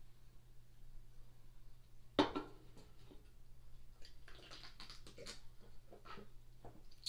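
A single sharp knock about two seconds in, then soft sipping and swallowing from an aluminium drink can.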